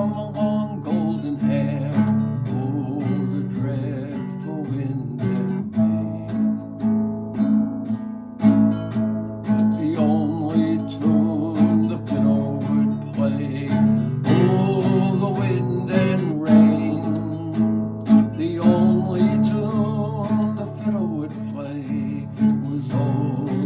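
Instrumental break in a folk ballad: acoustic guitar strummed and picked in a steady rhythm, with a wavering melody line over the chords.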